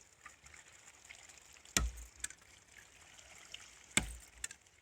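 Hydraulic ram pump running: its waste valve shuts with a sharp clack twice, about two seconds apart, and water trickles between the strokes.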